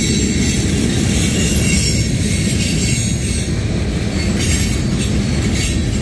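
Freight train of covered hopper cars rolling past close by: a steady, loud rumble of steel wheels on the rails that does not let up.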